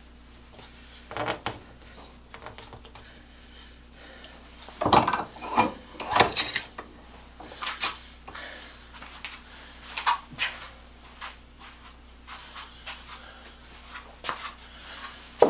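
Irregular wooden scraping and light knocks as a thin wooden dowel is pushed and twisted into a 3/8-inch hole reamed through a wooden drill handle, test-fitting the plug. The busiest scraping comes about five to six and a half seconds in.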